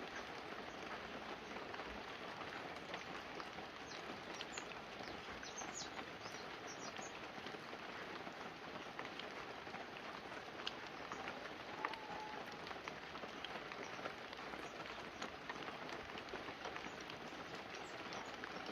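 Fine, light rain falling steadily on banana leaves and a roof: an even hiss of rain with many single drops ticking through it. Two slightly louder drips land about eleven and twelve seconds in.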